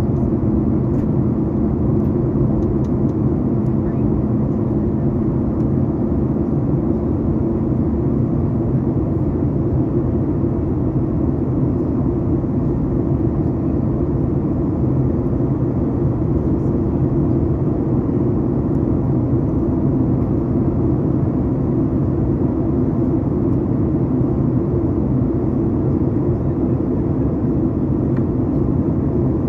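Steady cabin noise inside a Boeing 737 MAX 8 on approach: rushing airflow and the hum of its CFM LEAP-1B engines. A faint low steady tone within it fades out about nine seconds in.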